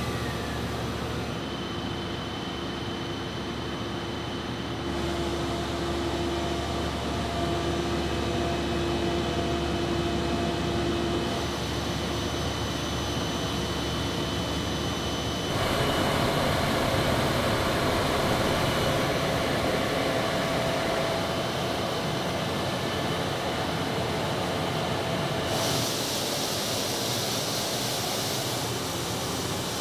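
Steady machine hum and whir of a blown-film plastic extrusion line running, with a few thin whining tones over it. The mix of the noise changes abruptly a few times.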